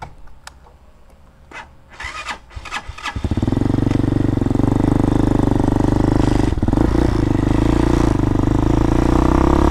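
A few small clicks, then about three seconds in the fuel-injected single-cylinder engine of an RPS Hawk DLX 250 motorcycle starts and runs steadily. It dips briefly about halfway through as the bike pulls away.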